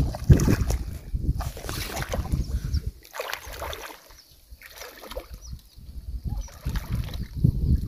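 Wind buffeting the microphone in low gusts, loudest near the start and again near the end, with water sloshing and splashing as a person wades into shallow water.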